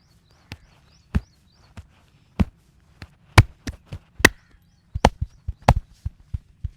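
Wooden massage sticks striking the body in an uneven string of sharp knocks, roughly two a second, turning into quicker, lighter taps near the end.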